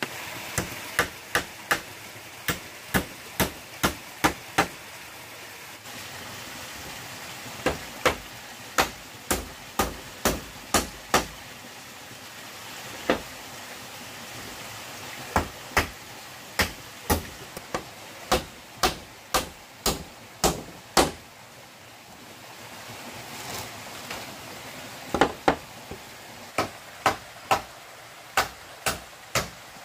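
Repeated sharp blows of a tool striking bamboo, about two or three a second, in runs broken by a few short pauses, over the steady rush of a small stream.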